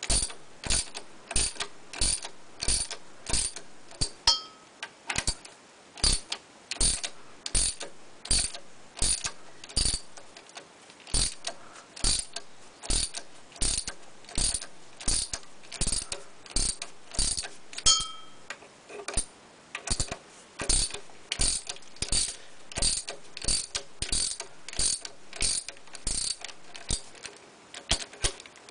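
Socket ratchet on the engine's flywheel nut clicking steadily, about two clicks a second, as its handle is worked back and forth to turn the flywheel.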